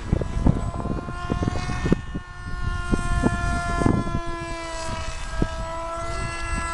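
Electric motor and propeller of a scratch-built twin-boom pusher RC plane whining steadily in flight, its pitch drifting slightly as it passes. Irregular low thumps of wind buffeting the microphone run underneath.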